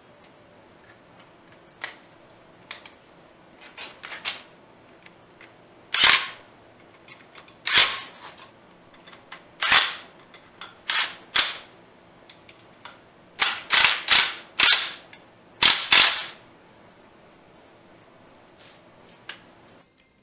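About a dozen short, sharp bursts from a cordless impact driver running in the bolts of a water-pump bracket on an engine, some in quick runs of two or three, with faint clicks of metal parts between them.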